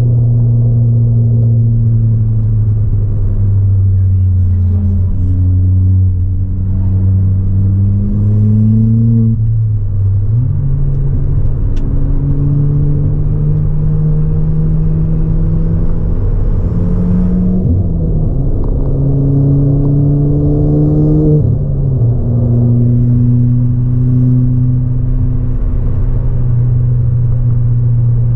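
Ford Fiesta ST180's turbocharged 1.6-litre four-cylinder, fitted with an ITG intake and a 3-inch aftermarket exhaust, heard from inside the cabin while being driven hard on track. The engine note climbs under acceleration and drops back sharply about 10, 18 and 22 seconds in, then holds fairly steady near the end.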